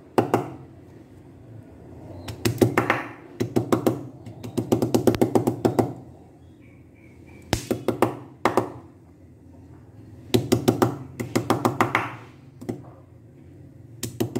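Knife chopping hot bird's eye chillies coarsely on a chopping board: quick runs of sharp knocks, several strokes a second, coming in bursts with short pauses between.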